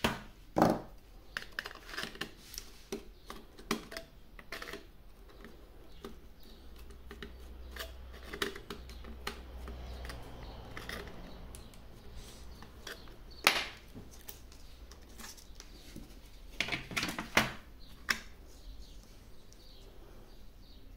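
Scattered clicks, taps and knocks of hands working on a small amplifier board: a screwdriver turning its screw terminals, and loose speaker wires and a DC power plug being handled. A faint low hum runs through the middle.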